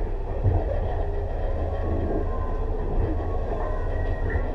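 Tobu 6050 series electric train running, heard from inside motor car MoHa 6169: a steady low rumble of wheels and TM-63 traction motors on the track, with one thump about half a second in.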